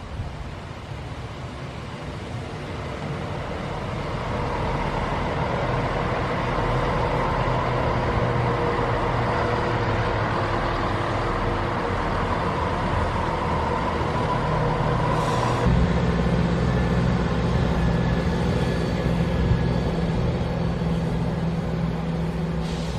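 A vehicle engine running steadily and growing louder over the first several seconds, then settling into a deeper, heavier note about two-thirds of the way through.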